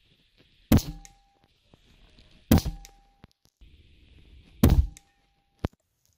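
Unregulated Daystate PCP air rifle in 5.5 mm firing single pellets: three sharp shots about two seconds apart, each followed by a short steady tone that cuts off suddenly, and a small click near the end.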